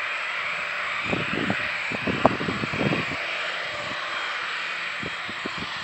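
Boeing 737-800's CFM56 turbofan engines at taxi power, a steady jet rush heard as the airliner taxis and turns onto the runway. Irregular low rumbles and a sharp knock come between about one and three seconds in, with a few more rumbles near the end.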